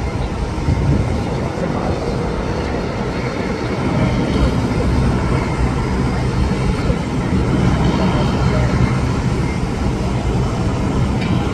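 Boeing 787-10 jet engines running during departure: a steady, deep rumble that grows a little louder about four seconds in.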